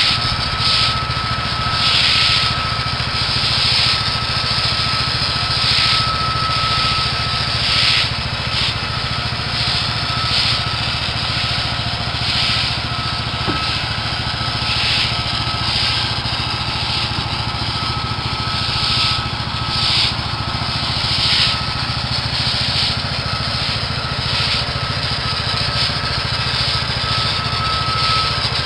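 A small gas engine runs steadily under a constant whine, while water from a hose wand hisses onto the sanded paver patio, the spray swelling and fading every second or two.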